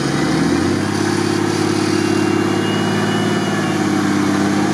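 Engine of a modified Lada Niva off-road truck running hard under load as it climbs out of a deep rut on a tow strap. The revs climb during the first second, then hold high and steady.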